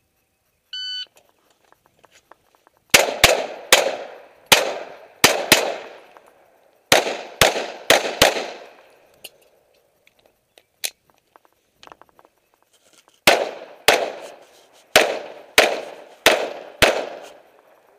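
Electronic shot timer gives one short start beep, then a pistol fires about seventeen shots in three quick strings, each shot a sharp crack with an echoing tail, with pauses of a second or more between strings.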